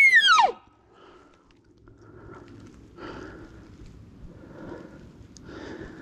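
The end of an elk bugle: a high whistle that drops away in pitch and stops about half a second in. After it come soft, regular breaths every second and a half or so.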